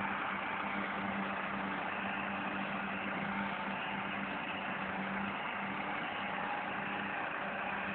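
Tractor diesel engine running steadily at constant speed during fieldwork, a continuous hum with no change in pitch.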